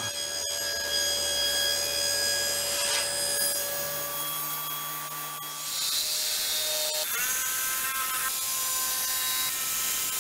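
Power saws cutting 1/2-inch Baltic birch plywood: a steady machine drone, taken to be the table saw, for the first few seconds, then a DeWalt corded jigsaw sawing through the plywood from about six seconds in.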